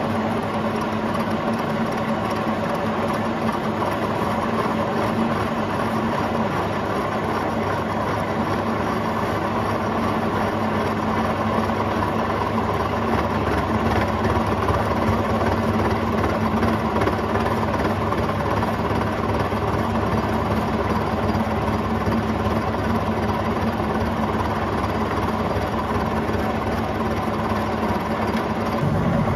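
Milling machine running with a face mill skimming TIG weld build-up flat on a steel forklift axle part: a steady machine hum under continuous cutting noise.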